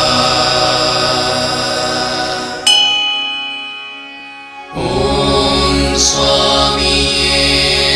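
Devotional music of chanting voices over a sustained drone. About two and a half seconds in, a single bell-like strike rings out and fades over about two seconds, then the chanting and music come back.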